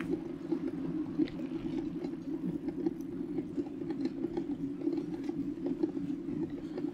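Bicycle tyres rolling along the road, a steady low hum with small scattered ticks and rattles, heard through a microphone mounted on the bike itself.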